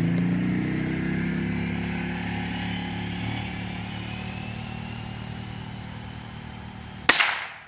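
Steady hum of a vehicle engine, its pitch shifting slowly, fading away gradually. About seven seconds in, a single sharp rifle shot cuts through, the loudest sound, dying away quickly.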